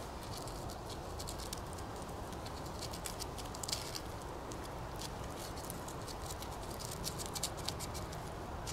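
Knife blade scraping birch bark into fine tinder scrapings: a quick, irregular run of short dry scratches over a steady low rumble of wind.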